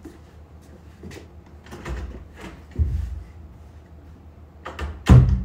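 Footsteps and a door being opened and shut, heard as a few separate knocks and thumps. The loudest is a heavy thump near the end as the door closes.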